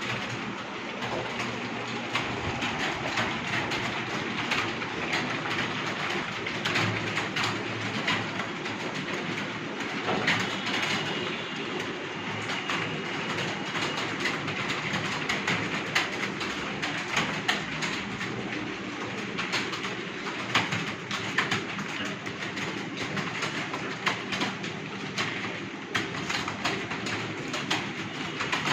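Computer keyboards being typed on rapidly, a dense, continuous clatter of keystrokes.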